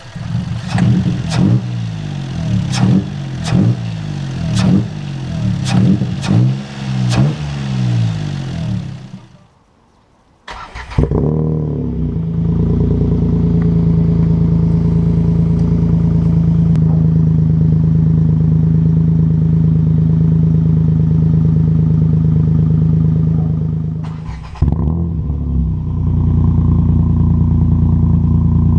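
Renault Kwid's three-cylinder engine through a full aftermarket exhaust, blipped repeatedly in quick revs for about nine seconds. After about a second of near quiet it runs at a steady idle, with a brief drop and recovery near the end.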